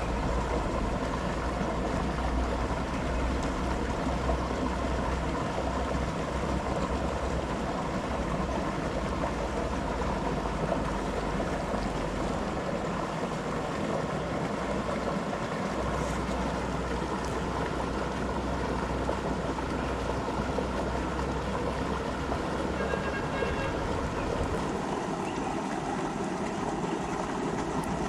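River water flowing with a steady rushing.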